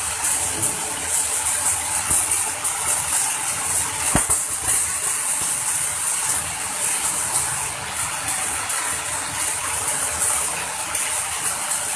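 Electric arc welding, the arc crackling and hissing steadily.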